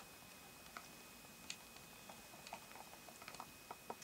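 Near silence in the woods, broken by faint, irregular clicks and ticks scattered through the whole stretch.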